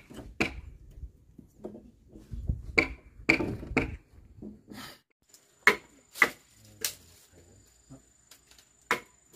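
A blade chopping into wood: about eight sharp strikes, spaced unevenly.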